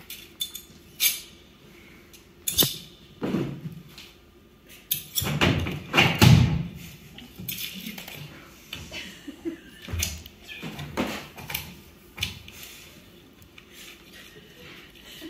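Irregular taps, knocks and rustling from cardboard shadow puppets being handled and moved, with a few short voice-like noises among them. The loudest stretch comes about five to seven seconds in.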